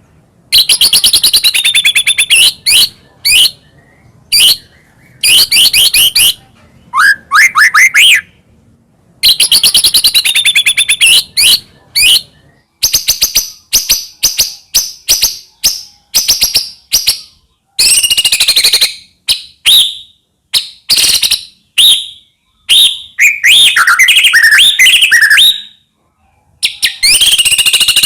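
White-rumped shama (murai batu) singing loudly: bursts of rapid notes, chattering trills and gliding whistles, broken by short pauses, with one longer pause near the end.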